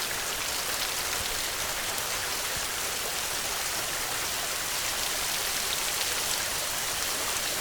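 Heavy rain falling steadily, a dense hiss of drops with no thunder.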